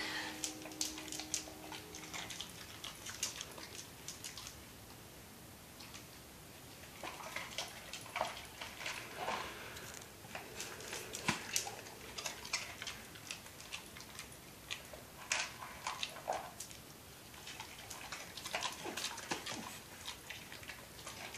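Faint scattered clicks and taps as a large dog eats puff snacks from a baby's plastic snack cup on a tile floor.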